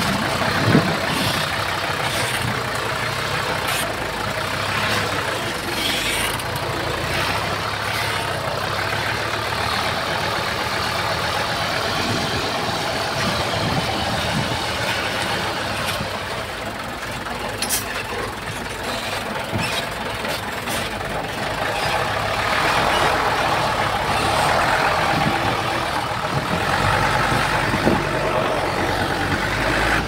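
Heavy earthmoving machine's diesel engine running steadily, with a few sharp metallic knocks. It gets louder about two-thirds of the way through.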